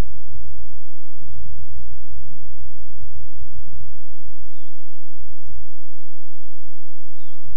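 Open-air savanna ambience: a heavy, uneven low rumble under small birds chirping, with a short level whistle repeating every two to three seconds.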